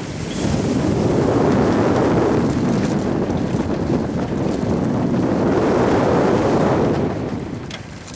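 Wind rushing over the microphone of a camera riding on a moving rollercoaster. The noise swells about a second in and eases off near the end.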